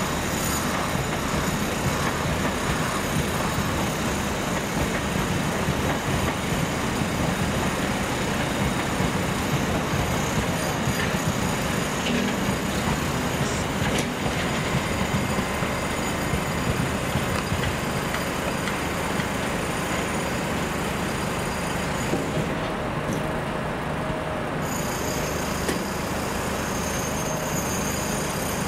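A train in a railway station, running with a steady low sound and hiss and no single sharp event standing out.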